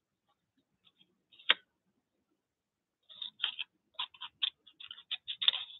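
Scissors cutting paper: one sharp click about a second and a half in, then a run of quick, crisp snips from about three seconds in.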